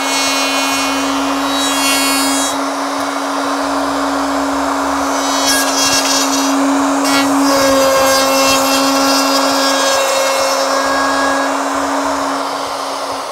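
Ryobi 2 HP variable-speed plunge router running at full speed with a steady high whine, its bit cutting the fin-box flange into a surfboard through an aluminium routing jig. It starts to wind down at the very end.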